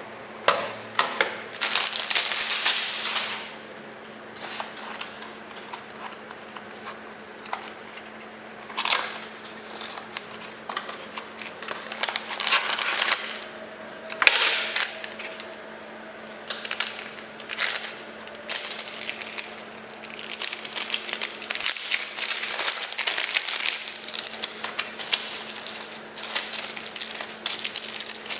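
Motherboard box packaging and accessories being handled during unboxing: rustling and crinkling in irregular bursts, with a few sharp clicks.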